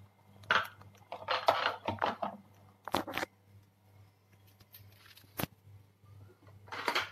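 Handling noise from a phone being picked up and moved: scratchy rustling and scraping in several short bursts, with a sharp click about five seconds in. A faint low hum runs underneath.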